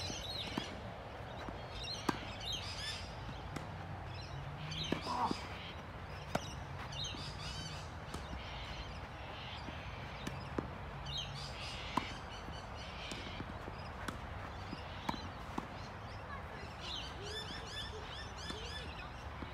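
Several birds chirping over a steady outdoor hum, broken by sharp pops of a tennis ball struck by racquets and bouncing on the court during a rally. The loudest pop comes about two seconds in.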